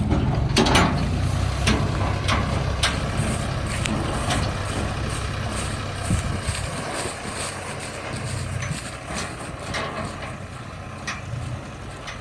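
Diesel engine of heavy earthmoving machinery running steadily, with repeated short knocks and clanks over it, slowly easing off in level.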